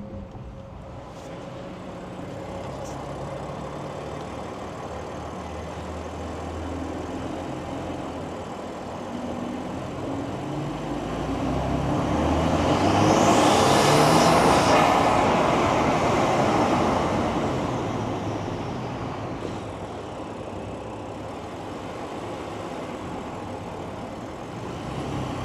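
BMW M4's twin-turbo straight-six, fitted with an open intake, driving past: the engine note builds to its loudest about halfway through, then fades as the car moves away.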